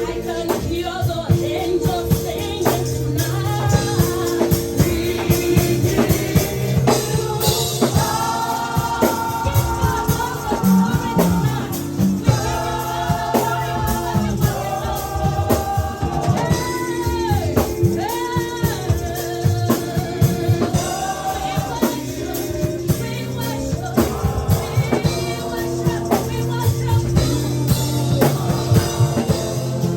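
Gospel worship music with singing over drums and a steady bass line; the voices are strongest through the middle stretch.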